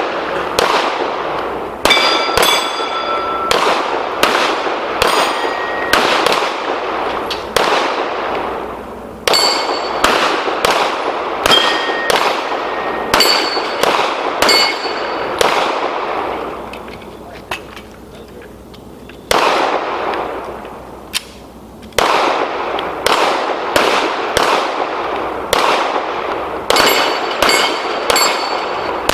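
Two pistols firing fast strings of shots at steel plate targets, each shot echoing and many followed by the clang and ring of hit steel. A lull of a few seconds past the middle is broken by a single shot, then rapid fire resumes.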